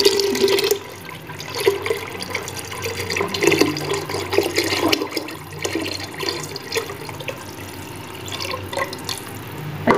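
Lassi (thinned yogurt) poured in a steady stream into a clay pot of thick masala, splashing and gurgling as it lands.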